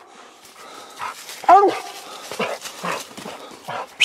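Coonhound barking treed at the base of a tree: one loud bark about a second and a half in, with several fainter barks after it. The barking means the hound has a raccoon treed.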